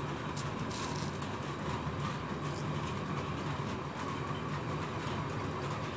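Steady background hum with hiss, a constant low tone under a wider even hiss.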